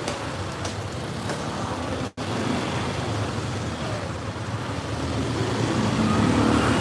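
Steady engine and road noise of a vehicle riding along a busy street. It cuts out for an instant about two seconds in and grows louder near the end.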